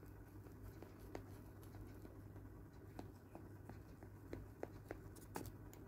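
Faint scattered clicks and scrapes of a knife slicing through a baked banana cake and touching its pan, over a low steady hum.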